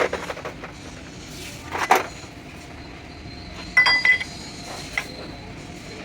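Metal tools or parts clinking and knocking against each other in a few separate strikes. A cluster of knocks about two-thirds of the way through rings briefly with a clear tone.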